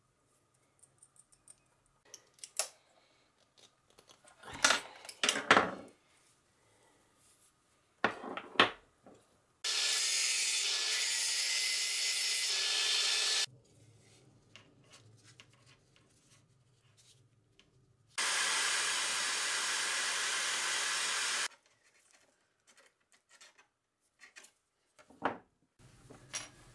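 Heat gun blowing steadily in two bursts of about three and a half seconds each, each starting and cutting off sharply, shrinking heat-shrink tubing over the wire joints of copper electrode leads. Before the bursts, light clicks and rustles of wires and terminals being handled.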